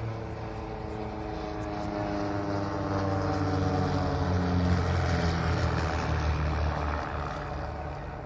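Piston-engined propeller aerobatic aircraft flying past. The engine note grows louder towards the middle, then drops in pitch and fades as it goes by.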